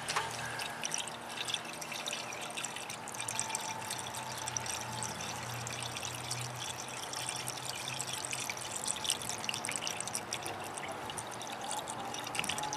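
Yellow antifreeze coolant pouring in a steady trickle from a plastic jug into a car's radiator filler neck, topping up a radiator that was low on coolant.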